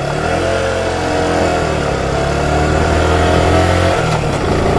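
Suzuki Gixxer 150's single-cylinder engine pulling away and accelerating, its note rising steadily, then changing about four seconds in as it shifts up.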